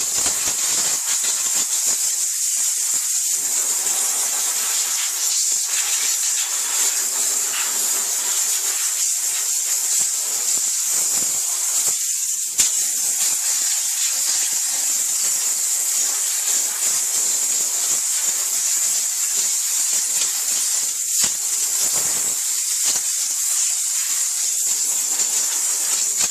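Electric steam cleaner on wet-steam mode blasting a steady jet of steam, giving a continuous loud hiss, with one brief click about halfway through.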